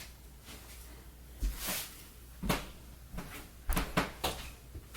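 Objects being handled and moved about: a short rustle followed by several sharp knocks and clicks, spaced irregularly, the loudest cluster near the end.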